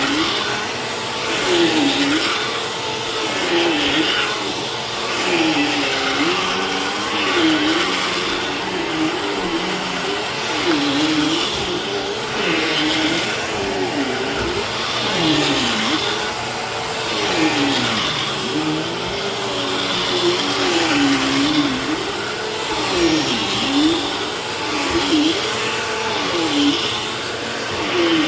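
Vacuum cleaner running while vacuuming, its motor pitch dipping and recovering every one to two seconds, with the loudness swelling and easing in step.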